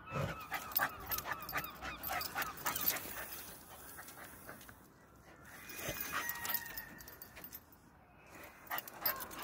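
Patterdale terrier cross whining in thin high tones and sniffing hard in quick bursts at a gap under decking, scenting a rat. The whining comes near the start and again about six seconds in, and the sniffing is densest in the first few seconds.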